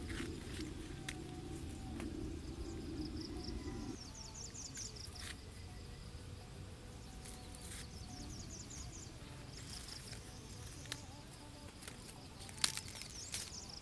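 Insects chirping in repeated high pulsed trills that come and go in bouts, with a few sharp snaps or knocks, the loudest about twelve to thirteen seconds in. A low hum underneath stops about four seconds in.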